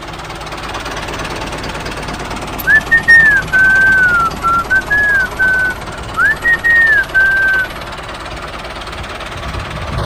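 A steady mechanical engine-like noise, with a short whistled tune over it from about three seconds in to near eight seconds; the tune's phrases rise and fall and are the loudest sound.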